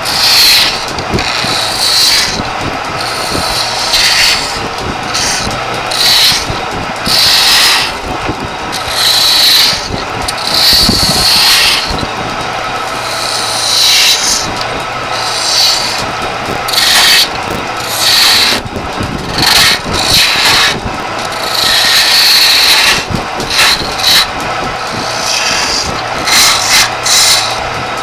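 Turning chisel cutting a wooden charpai leg spinning on a wood lathe: repeated scraping cuts of about a second each, every second or two, over the steady hum of the running lathe.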